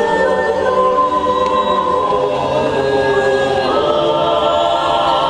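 Mixed choir singing a cappella in several-part harmony, holding sustained chords and moving to a new chord about four seconds in.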